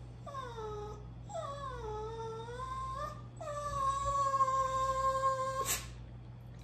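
Boston Terrier whining to beg for food: three high-pitched whines, the first two falling in pitch and the last one long and held steady, ending abruptly in a brief sharp sound.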